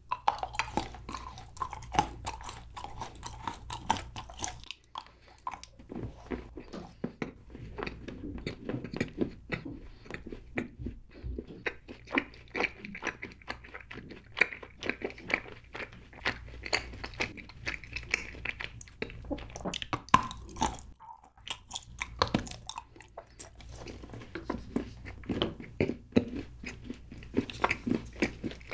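Close-miked biting and chewing of a piece of chocolate bar: a crisp bite, then steady crunching and wet chewing clicks. There are two short pauses, about 5 and 21 seconds in.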